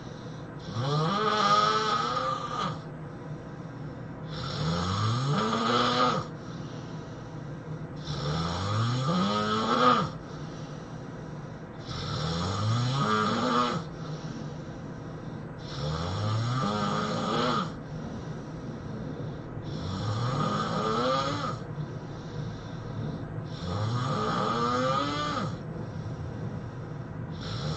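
A person snoring in a steady rhythm: seven long snores about every four seconds, each lasting about two seconds and rising in pitch, with quieter breathing between them.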